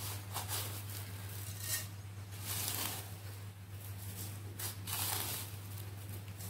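Roasted fine vermicelli being tipped and pushed by hand from a plate into a pan of ghee: dry rustling of the strands in several short bursts, the strongest around the middle and again about five seconds in.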